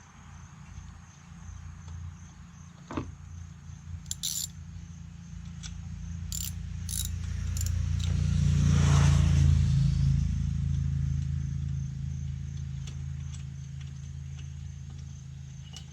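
A few light metal clicks from a spark plug being threaded in by hand and the tools being handled, over a steady low hum. A passing vehicle swells up and then fades away around the middle, and is the loudest sound.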